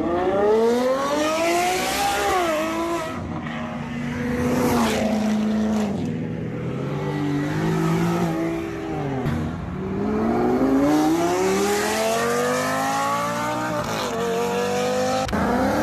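Performance car engines accelerating hard past, each run rising steeply in pitch and dropping sharply at the upshifts, several times over.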